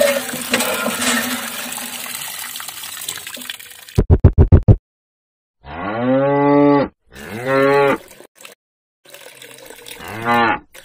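Water trickling and splashing from a toy hand pump into a small pond for about four seconds, then a brief run of rapid beats, then a cow mooing three times, two long calls and a short one near the end.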